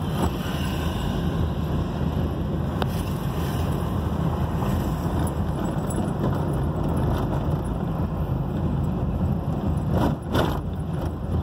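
Car driving along a town street, heard from inside the cabin: steady engine and road rumble, with two short knocks about ten seconds in.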